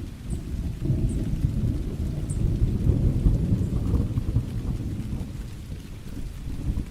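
Thunderstorm: a low rumble of thunder swells about a second in, peaks around three seconds and then fades, over steady rain with a few drops ticking.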